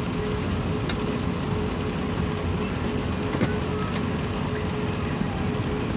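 Airbus A380 cabin noise on the ground before takeoff: a steady low rumble with a constant hum, and a couple of faint clicks.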